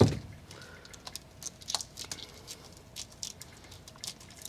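Plastic split-loom tubing and wires being handled on a carpeted floor. A soft thump at the start, then scattered light clicks and rustles.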